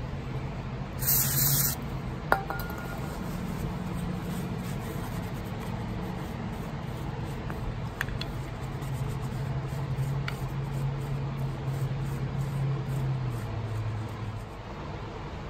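Hands cleaning small metal solenoid housings on a shop rag: a short spray hiss about a second in, a sharp metal clink just after, and a few light clicks, over a steady low hum that drops in pitch near the end.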